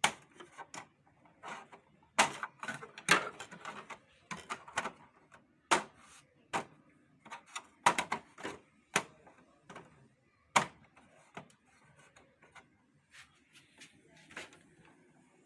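Plastic cover of a Xerox WorkCentre 5855 document feeder being fitted back into place: a string of sharp, irregular clicks and knocks as the panel is pushed on and snaps home.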